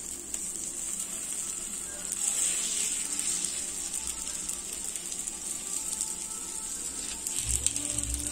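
Egg paniyaram batter sizzling steadily in hot oil in the cavities of a cast-iron paniyaram pan. Light ticks come from a skewer turning the balls, with a few low knocks near the end.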